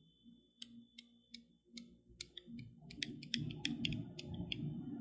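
Faint, irregular small clicks and ticks. There are only a few at first, then several a second from about two seconds in, over a soft low rustle.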